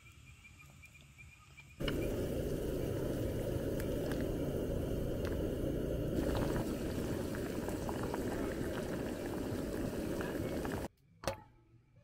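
A pot of water at a rolling boil, with chewy taro-style dessert balls (Q圓) cooking in it, bubbling steadily. The boiling starts suddenly about two seconds in and stops abruptly near the end, followed by a single sharp click.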